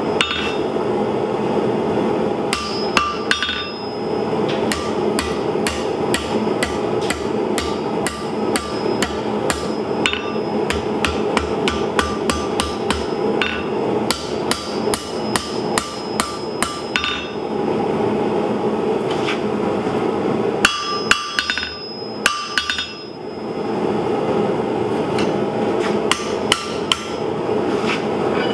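Hand hammer striking a red-hot steel bar on an anvil, tapering its end and curling it into a scroll: long runs of blows, sometimes about four a second, broken by short pauses, each strike ringing off the anvil. A steady background noise runs under the blows.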